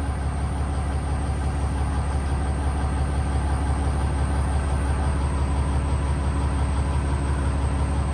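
Cummins diesel pickup engine running at idle, a steady low drone, as the truck moves slowly.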